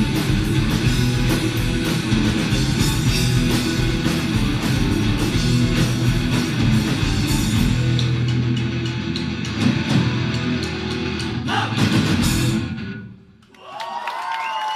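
Live rock band playing loud: distorted electric guitars, bass and drum kit. The music thins out about eight seconds in, swells again for a final burst, then stops abruptly about thirteen seconds in.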